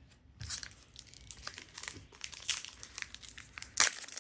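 Crinkling and tearing of a trading card pack wrapper being opened by hand: a run of irregular crackles, loudest near the end.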